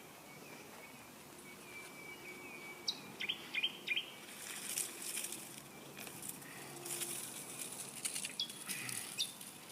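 Small birds chirping in short, sharp calls, a few around three to four seconds in and again near the end. Between them come soft, scratchy rustles of soil being dug through by hand while harvesting potatoes.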